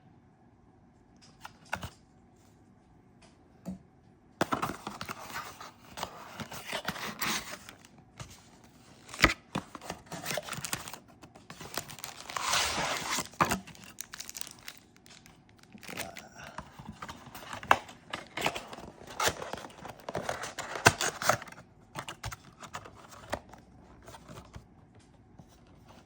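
Plastic wrapping being torn and crinkled as a trading-card mega box is opened, in repeated bursts that start about four seconds in and stop a few seconds before the end, with a few sharp clicks of handling.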